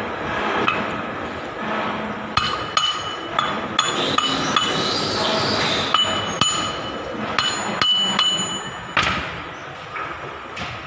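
Hammer tapping on metal: about a dozen irregular sharp strikes that ring briefly, bunched in the middle of the stretch.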